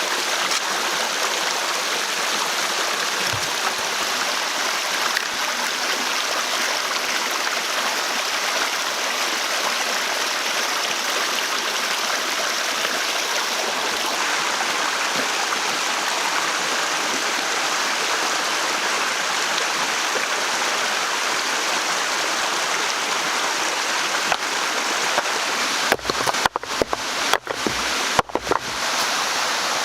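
Steady rush of flowing water, like a stream, which cuts out briefly several times near the end.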